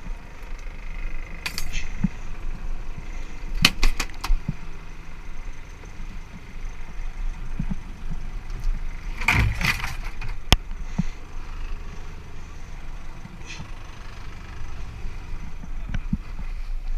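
Boat engine idling with a steady low rumble. Spear shafts and a speared amberjack are handled on the deck, giving a few sharp knocks and a clatter about four seconds in and again around ten seconds.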